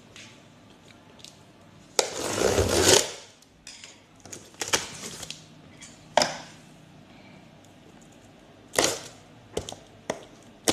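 Cardboard box being handled for unboxing: a loud rough scraping rustle lasting about a second, about two seconds in, then scattered knocks and clicks of the packaging being moved.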